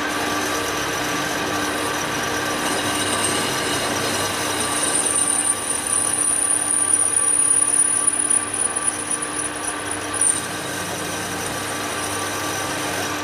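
Denford Easiturn lathe running steadily while turning a metal plate. A high, steady whine joins in about four seconds in and cuts off sharply about ten seconds in.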